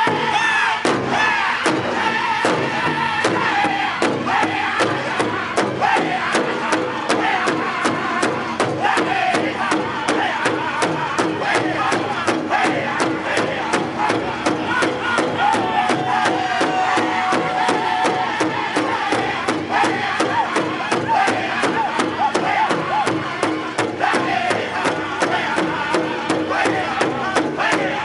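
A powwow drum group singing together in loud chanted vocals over a large shared powwow drum. Several drummers strike the drum at once in a steady, even beat.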